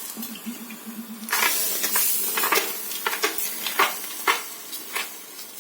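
Water being spread by hand over a jowar bhakri on a hot iron tawa: a sizzling hiss swells about a second and a half in, among repeated soft dabs and pats of the wet hand.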